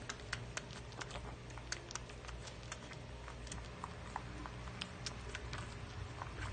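A litter of puppies nursing from their mother: irregular small clicks and smacks, a few a second, over a low steady hum.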